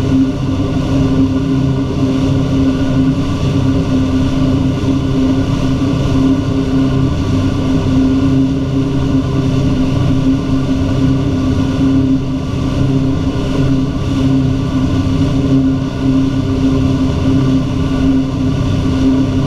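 Wake boat's inboard engine running steadily at surfing speed, an even hum, over the rushing churn of the boat's wake.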